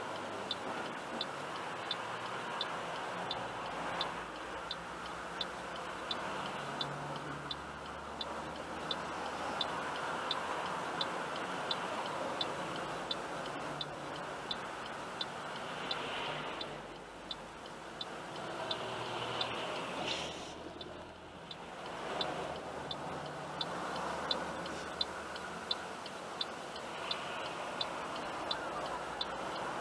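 A car's turn-signal indicator ticking steadily, about three clicks every two seconds, heard inside the cabin of a car waiting at a light, over the steady hum of the idling car and passing traffic.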